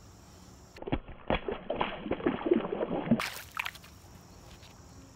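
Water sloshing and splashing in the shallows at a muddy pond edge: a quick run of splashes lasting about two seconds, starting about a second in and dying away after three seconds.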